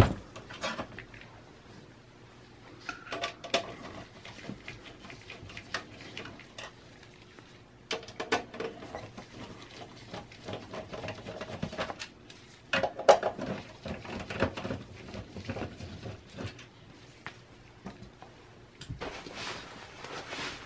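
Screws being backed out of a desktop PC's steel case with a Phillips screwdriver to free the power supply: irregular small clicks, scrapes and light metallic knocks, with a sharper knock a little past halfway.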